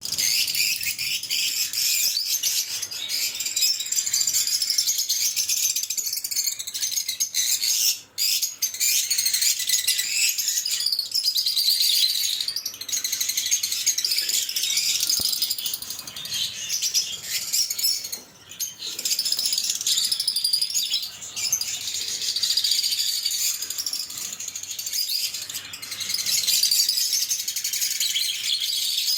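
Lovebirds chattering: a dense, continuous run of rapid high-pitched chirps and twitters, with brief breaks about 8 and 18 seconds in.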